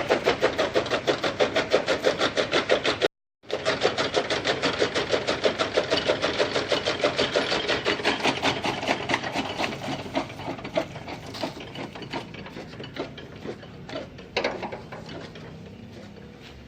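Toka machine (fodder chaff cutter) running, its blades chopping in a fast, even clatter of about six strokes a second. In the second half the strokes grow fainter and more irregular, thinning out near the end as the machine runs down.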